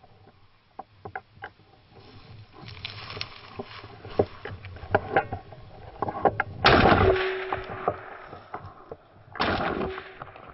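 Footsteps crunching and rustling through frosty dry grass and brush, with irregular crackles, then two loud rushes of noise, one about two-thirds of the way in and one near the end.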